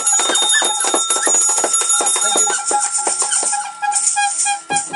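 Live rock band playing the instrumental close of a song: a hand-held shaker rattles in quick rhythm over electric guitars holding a steady note. After about three and a half seconds it changes to short repeated notes, about four a second.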